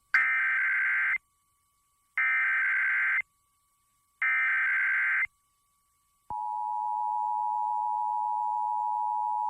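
Emergency Alert System test: three one-second bursts of warbling digital data tones (the SAME header), about a second apart. About six seconds in, the EAS attention signal starts, a steady two-note tone.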